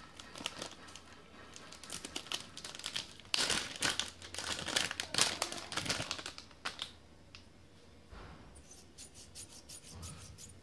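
Thin plastic packaging pouch crinkling and rustling as it is torn open and handled by hand, busiest around the middle and sparser toward the end.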